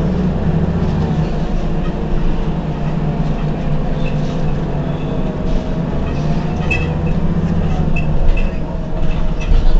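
Heuliez GX 127 city bus running: a steady low engine hum with a whine that rises and falls in pitch, and a few light clicks and rattles near the end.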